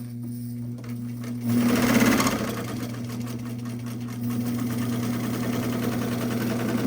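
White 658 sewing machine running on its original electric motor, sewing a straight stitch: a steady motor hum under the fast, even clatter of the needle mechanism. It surges loudest about one and a half to two and a half seconds in, then runs on steadily.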